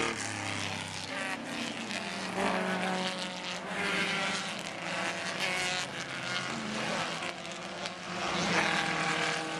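Several 1960s saloon race cars, Minis and a Lotus Cortina among them, racing past on the circuit, their engines rising and falling in pitch as they pass, loudest near the end.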